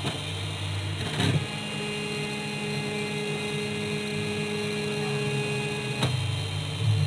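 Myriwell 3D printer running a print job: the stepper motors hum, and from about a second in until about six seconds in they hold a steady whine during one long move, with a short knock as that move starts and as it ends.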